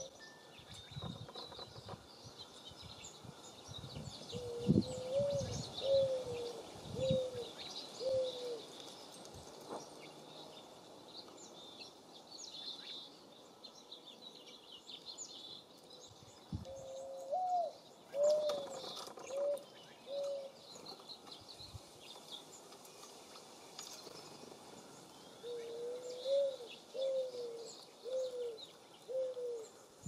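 A dove cooing in three phrases of about five low notes each, with a note rising higher in the middle phrase. Small songbirds chirp at the feeder throughout.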